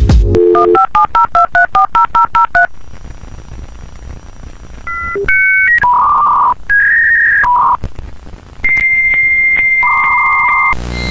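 Telephone keypad touch tones dialing about a dozen digits in quick succession, followed by a string of electronic phone-line beeps of differing pitch and then a long steady high tone, with a harsher lower tone joining it near the end before everything cuts off suddenly.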